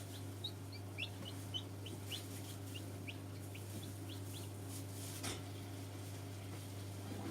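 Newly hatched chicks peeping: a run of short, high, rising peeps, about three a second, that stops about four and a half seconds in. Under them runs a steady low hum.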